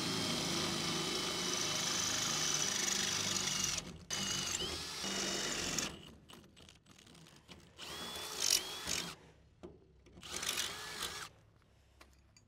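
Cordless drill with a 3/8-inch bit boring through the steel of a shipping container door. It runs steadily for about four seconds, then for under two seconds more, then in two short bursts near the end where the motor spins up and winds down.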